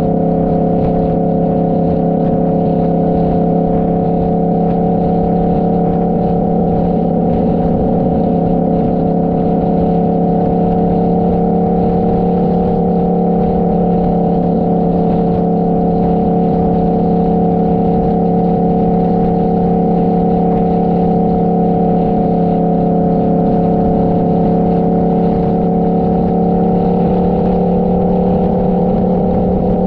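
Motorcycle engine running at a steady cruising speed, its pitch holding level throughout, over a steady low rush of wind noise.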